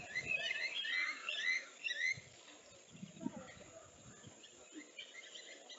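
Small birds chirping and twittering in quick, overlapping calls, busiest in the first two seconds and thinning out after, with a couple of short low rumbles in between.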